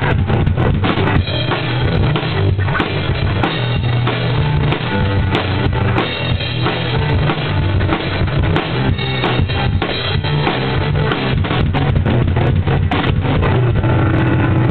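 Drum kit played hard in a heavy metal rehearsal: rapid kick drum, snare and cymbal hits throughout, over sustained low notes from the other instruments that shift in steps like a riff.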